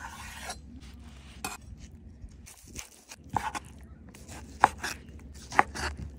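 A knife slicing a cooked steak on a cutting board, the blade knocking on the board four times at irregular intervals.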